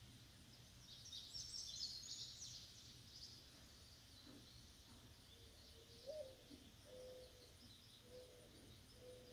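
Faint outdoor ambience: small birds chirping high and briefly about a second in, then a few low, steady call notes spaced about a second apart in the second half.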